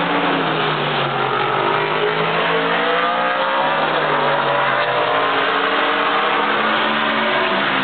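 Several vintage V8 race cars running hard past, their engine notes overlapping and rising as they accelerate out of the corner, then falling away as they pass.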